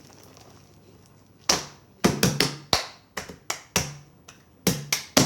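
Homemade slime being squeezed and kneaded by hand, giving an irregular run of sharp pops and clicks that starts about a second and a half in.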